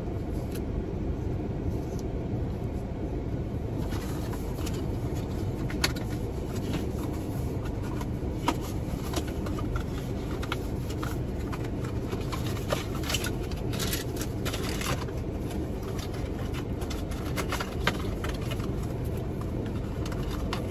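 Steady low hum of a running car, heard inside the cabin, with scattered small clicks and rustles of packaging and tissue paper being handled, most of them in the middle stretch.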